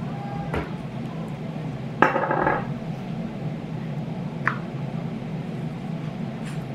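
Spice shakers being handled while seasoning: a short clatter and clink about two seconds in, and sharp clicks, one with a brief ring, around half a second and four and a half seconds, over a steady low hum.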